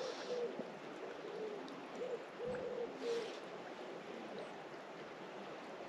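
A bird's faint low calls, a few short notes in two groups, over a steady hiss of flowing river water.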